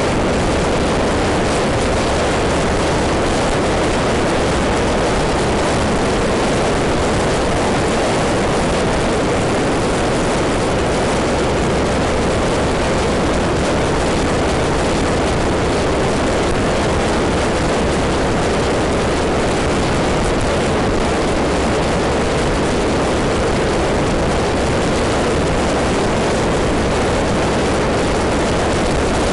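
Steady noise of a maxi-scooter riding at road speed: engine and rushing wind blend into one even roar with no changes in pace.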